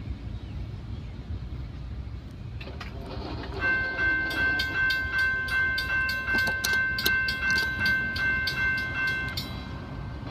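Railroad crossing bell ringing in a fast, even rhythm while the crossing gate arms rise after a train has cleared, stopping abruptly near the end as the gates come up. A low rumble sits underneath.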